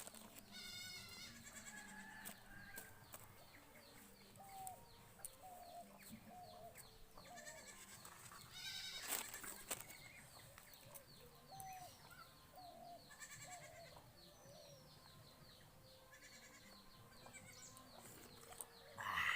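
Faint farmyard animal sounds: a goat bleats now and then, louder about halfway through and again near the end, among short repeated calls and chirps from other animals or birds.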